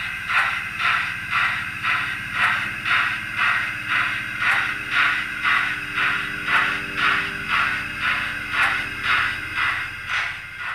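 Sound-fitted model of a Southern Railway Lord Nelson class steam locomotive running slowly. Its small speaker plays recorded exhaust beats of the preserved Lord Nelson, eight beats per wheel revolution, as even chuffs about two a second over a faint low hum.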